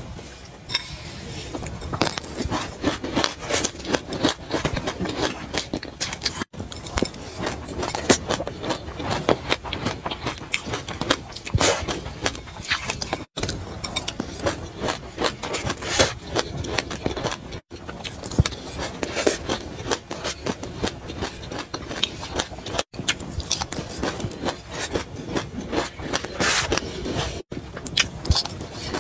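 Close-up crunching and chewing of mouthfuls of dry sesame seeds, mixed with a metal spoon scraping and scooping the seeds in a glass bowl: a dense, crackly stream of small clicks, cut off for an instant five times.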